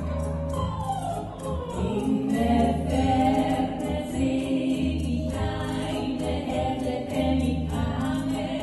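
Two women singing a cabaret song into handheld microphones over an instrumental accompaniment with a pulsing bass.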